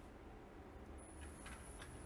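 Near silence: a faint low hum, with a few faint clicks a little past halfway and a thin high whine starting about halfway.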